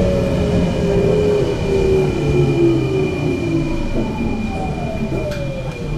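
Electric train braking into a station, heard from inside the carriage: the motor whine falls steadily in pitch as the train slows, over a running rumble, with a steady high-pitched tone on top.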